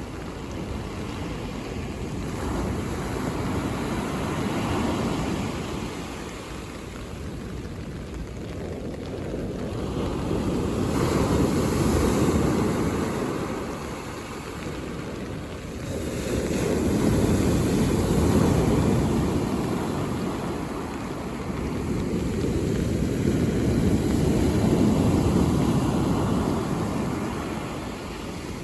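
Mediterranean sea waves breaking on the shore. The surf swells and fades in four slow surges, about every six to seven seconds.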